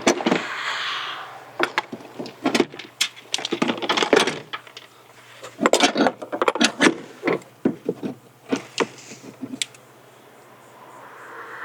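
Irregular clicks and knocks from a wrench and engine-bay parts being handled while the air box bolts are loosened and removed, coming in clusters with short pauses between.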